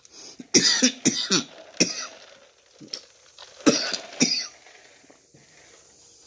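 A man coughing in a short fit: about four coughs in the first two seconds, then two more a couple of seconds later.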